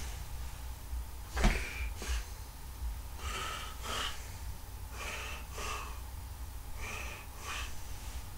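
A person breathing audibly near the microphone, in-and-out pairs about every second and a half. There is a knock about a second and a half in.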